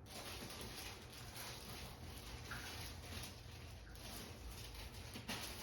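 Quiet room tone with faint scattered small noises and no distinct event.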